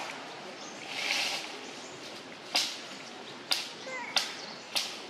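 Four sharp clicks or snaps, spaced a little under a second apart, over a steady outdoor hiss that swells briefly about a second in. A faint short high squeak falls in pitch between the second and third click.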